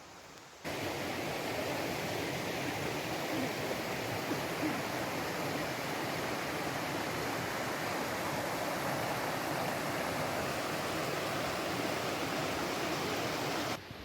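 Rushing water of a mountain stream, a steady even rush that starts abruptly about a second in and cuts off near the end.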